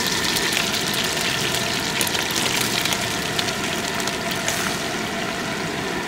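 Floured chicken breasts sizzling and crackling in hot grapeseed oil and butter in a frying pan, a steady frying sizzle.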